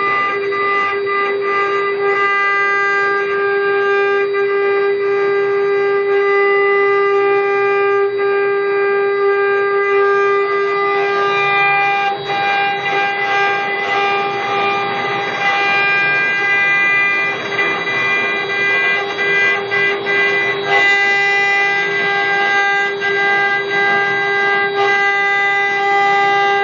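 Four-head rotary CNC router carving wood: the spindles run with a steady high-pitched whine, under a rough cutting noise that rises and falls as the bits work, more uneven in the second half.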